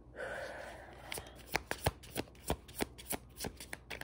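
A deck of tarot cards being shuffled by hand: a soft rustle at first, then a run of sharp card clicks, about three a second.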